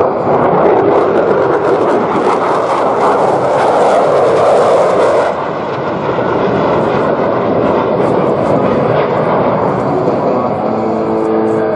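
USAF F-16 fighter jet flying past low, a loud steady jet noise that is strongest in the first half and eases slightly about five seconds in. Music begins faintly near the end.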